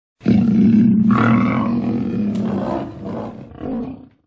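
Lion roaring, the MGM studio logo roar: one long roar, then two shorter, quieter ones.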